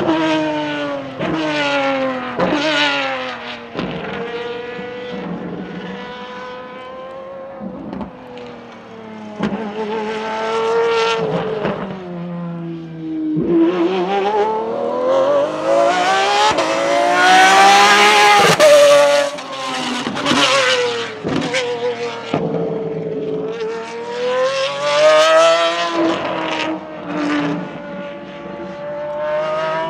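Pagani Zonda R's V12 racing engine driven hard on a track. Its pitch falls in quick steps during the first few seconds as it shifts down. It then climbs in a long rise under acceleration, drops sharply at a gearshift, and climbs and drops again.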